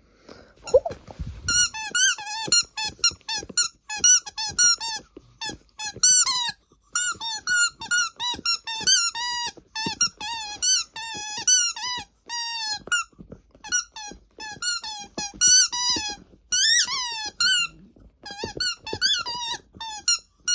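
A dog's rubber squeaky ball squeaking over and over as a small dog chews it. The squeaks come in quick, irregular runs of short, high notes that bend up and down in pitch, starting about a second and a half in.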